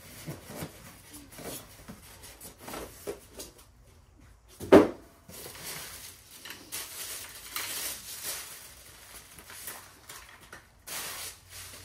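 Unpacking: a foam packing insert and plastic-wrapped parts handled in and out of a cardboard box, with clicks and knocks, one sharp thump just under five seconds in, and a stretch of plastic wrap rustling after it.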